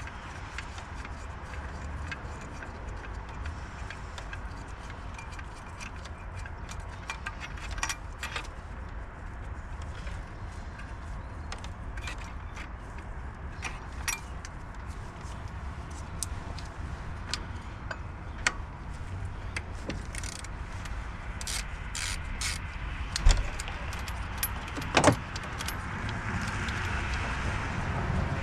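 Metal hand tools clicking and clinking against parts in a car's engine bay as bolts are worked on, scattered light clicks growing busier in the second half, with two sharper knocks near the end, over a steady low rumble.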